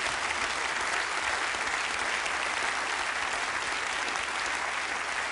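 Studio audience applauding, many people clapping steadily.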